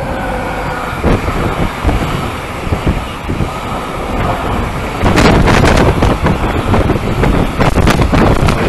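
Freight train hauled by an electric locomotive passing, its wagons rumbling and clattering on the rails. Whining tones from the locomotive fade over the first second or so. About five seconds in the noise grows louder and rougher, with wind buffeting the microphone.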